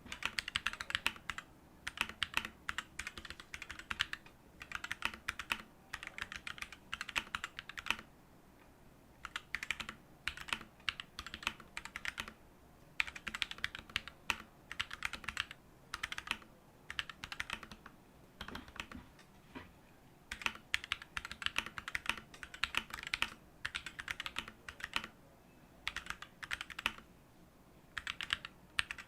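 Mechanical keyboard with factory-lubed Durock L7 62g linear switches being typed on, in runs of quick keystrokes broken by short pauses.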